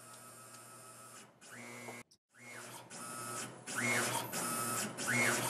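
Tormach PCNC 770 CNC mill's stepper-driven axes moving the touch probe through a digitizing run: a whine that rises and falls with each probing move, repeating about every second and a quarter over a steady hum.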